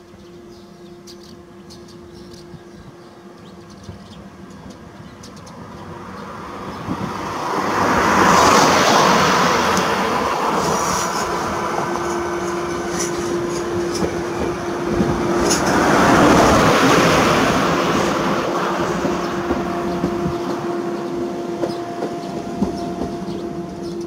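Newag Impuls II electric multiple unit passing at speed: the rush of wheels on rail grows as it approaches, is loudest as it passes about 8 and 16 seconds in, then fades as it runs away.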